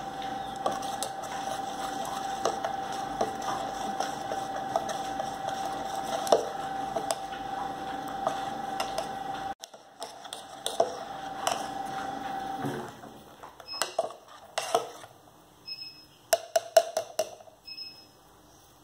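Spoon stirring thick dosa batter in a steel bowl, with small scrapes and clicks against the metal, over a steady hum that stops suddenly about two-thirds through. Several sharp clinks of the spoon on the steel bowl follow near the end, with a few short high beeps.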